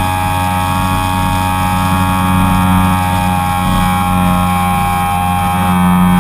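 HobbyZone Super Cub RC plane's electric motor and propeller running steadily, heard from a camera on the plane: a whine of many steady tones, with wind hiss on the microphone.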